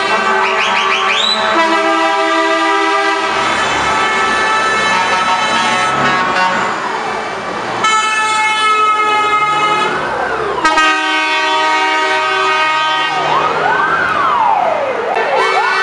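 Trucks passing close by sounding loud multi-tone air horns in long held chords over a low engine rumble. In the second half a siren wails up and down, repeating several times toward the end.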